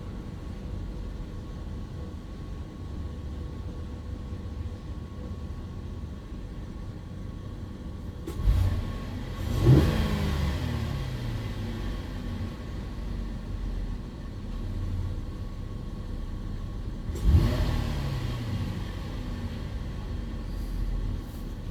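Car engine idling, blipped twice; each time the revs jump and then slide back down to idle. A short knock comes just before the first blip.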